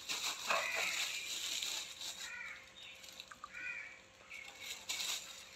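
Metal spoon scooping and stirring gram flour in a glass bowl, with a soft rustling scrape in the first second and again near the end. A bird gives short calls about four times.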